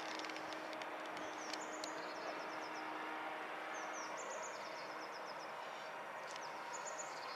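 Steady outdoor city background noise, with small birds chirping in quick runs of high notes several times.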